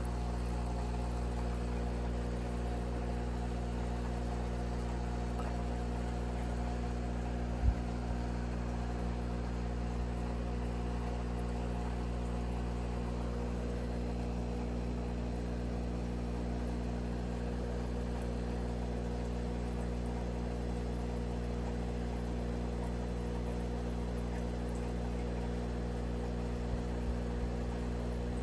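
Steady hum of aquarium equipment: the air pump and filter running. One short low thump sounds about eight seconds in.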